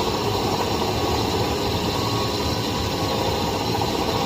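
Metal lathe running steadily with a steady motor hum and faint whine, turning a brass part down to size.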